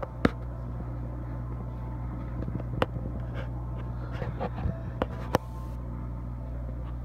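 Steady low mechanical hum of room machinery, with a few sharp clicks scattered through it.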